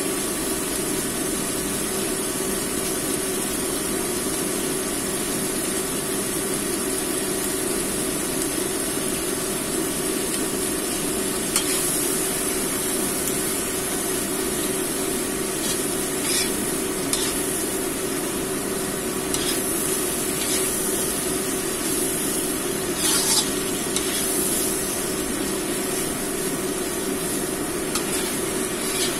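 Fish-head pieces, long beans and tomato with laksa paste sizzling in a non-stick wok while a metal spatula stirs them, with a few sharp scrapes and taps of the spatula against the pan. A steady low hum runs underneath.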